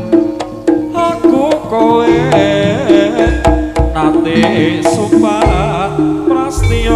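Javanese jaranan ensemble music: hand drums keeping a busy beat under a wavering melody line, with a deep low hit near the end.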